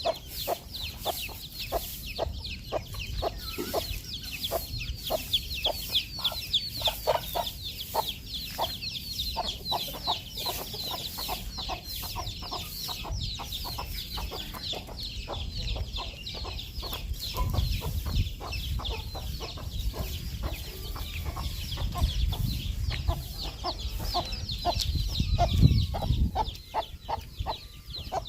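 Baby chicks peeping nonstop in high, quick, falling chirps, with a hen clucking in short lower notes. A low rumble rises in the second half and is loudest near the end.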